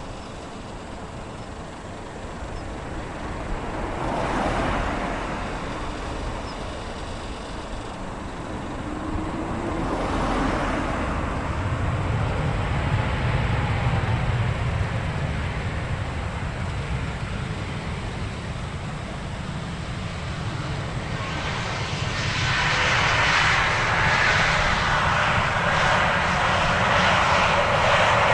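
Airbus A321neo's Pratt & Whitney PW1100G-JM geared turbofan engines running, swelling twice and then growing clearly louder about three-quarters of the way through, with a brief gliding whine along the way.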